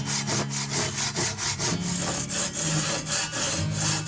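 Hand saw cutting through a wooden board in quick, even strokes.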